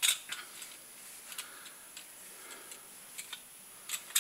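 Scattered sharp clicks and taps of a metal shotgun part knocking as a cloth is rubbed over it to apply cold bluing, with soft cloth rubbing between them. The loudest click comes right at the start.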